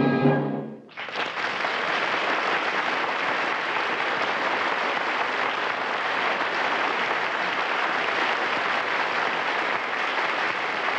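The closing music cue dies away in the first second. Then an audience applauds steadily as a dense, even clapping.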